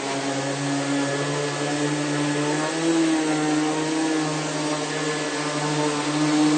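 Rainbow water-filter vacuum cleaner running steadily while it cleans a mattress: a steady motor hum and rushing air, the pitch wavering slightly about halfway through.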